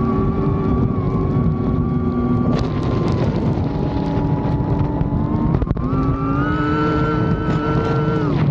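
FPV drone's brushless motors and propellers whining, the pitch following the throttle: steady at first, dropping about three seconds in, climbing higher about six seconds in and falling away near the end. One brief knock comes a little before the pitch rises.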